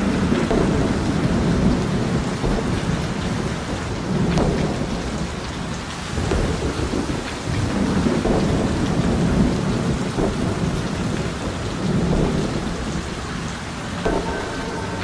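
Beatless noise passage in an electronic techno track: a dense, rain-like hiss with low rumbling swells about every two seconds, resembling rain and thunder. Sustained pitched tones come back near the end.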